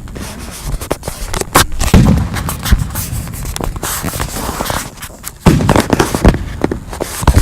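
Aerial fireworks going off: sharp bangs with crackling between them, and heavy low booms about five and a half and seven seconds in.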